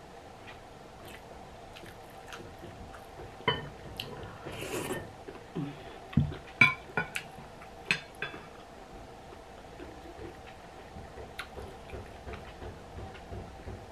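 Metal spoon clicking and scraping against ceramic bowls during a meal. A short cluster of sharp clinks falls a few seconds in, along with a brief rustle and some soft thuds, over a faint steady hum.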